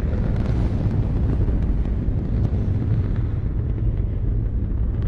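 Saturn V S-IC first stage's five F-1 rocket engines in a static test firing: a loud, steady, deep rumble with a rushing hiss above it.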